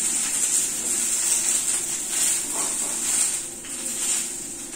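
Okra frying in mustard oil in a kadhai, a steady high sizzle.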